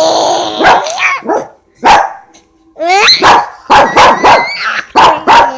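Dog barking repeatedly in short, sharp barks.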